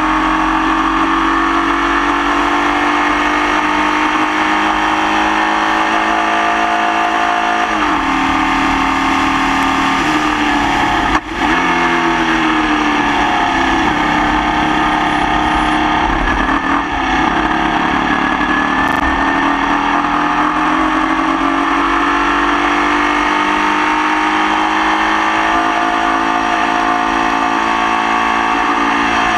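Formula Vee racing car's air-cooled Volkswagen flat-four engine at racing speed, dropping in pitch several times as the driver lifts and shifts down, then rising again as it accelerates; a sharp knock about eleven seconds in. The engine is running with a misfire.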